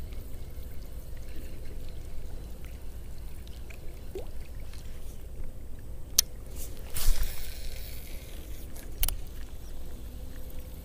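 A baitcasting reel during a cast: a sharp click about six seconds in, then about a second of hissing whir as line pays off the spool, then another sharp click near the end as the reel is engaged. A steady low rumble runs underneath.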